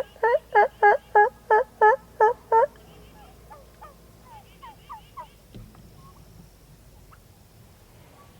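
Wild turkey gobbling: a loud, rapid run of about nine rattling notes over two and a half seconds, followed by a few fainter short calls.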